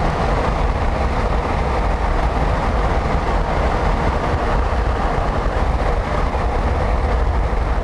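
Steady rumble and hiss of road and wind noise from a storm-chasing van on the move, heaviest in the low end.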